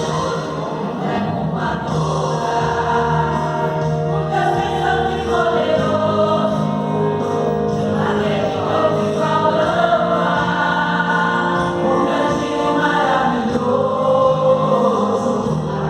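Church choir singing a gospel praise song with instrumental accompaniment, voices holding long sustained notes.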